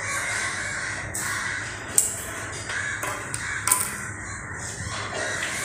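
Pocket lighter clicking, twice, about two seconds and nearly four seconds in, as a tea-light candle is lit, over repeated harsh cawing calls in the background.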